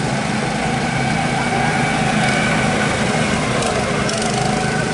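Go-kart engines running as several karts lap the track, their pitch rising and falling as they speed up and slow down.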